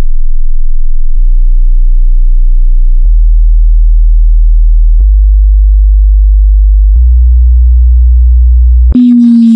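Deep bass test tones: a steady low sine tone that steps up in pitch about every two seconds, with a small click at each step. Near the end it switches to a higher tone that slowly falls, with a hiss above it.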